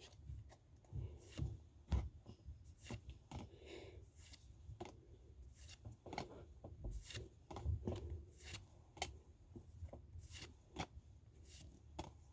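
Faint rustling and light clicking of trading cards being handled and slid one behind another, in irregular small taps.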